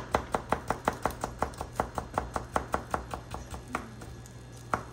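Kitchen knife chopping carrots on a cutting board: quick even strokes about six a second, easing after about three seconds to a couple of single chops.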